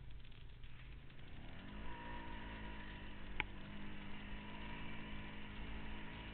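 Off-road vehicle engine picking up revs about a second and a half in, its pitch rising, then running steadily at the higher speed, with a single sharp click near the middle.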